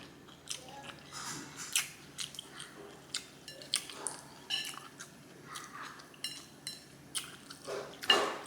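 A person chewing food with wet lip smacks and mouth clicks, irregular and spread throughout, with the loudest smack near the end.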